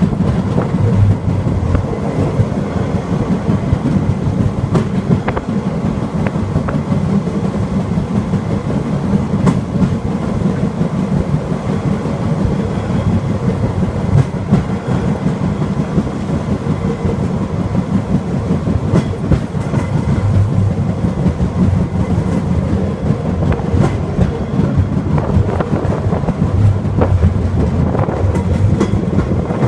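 Rail cart running along the track: a steady low rumble of engine and wheels, with scattered faint clicks from the rails.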